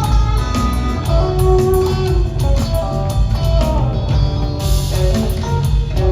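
Live rock trio playing an instrumental jam: electric guitar lines over bass guitar and drum kit.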